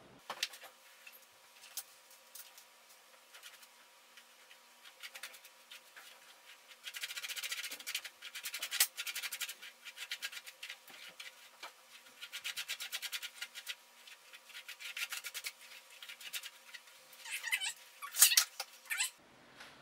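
Hairbrush bristles scratching through long, knotted hair in rapid repeated strokes. The strokes come in spells of a few seconds and are loudest near the end.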